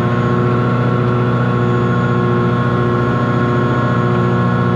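A self-launching sailplane's AE 50R Wankel rotary engine, extended on its pylon behind the cockpit, running steadily at climb power of about 7200 rpm, heard from inside the cockpit.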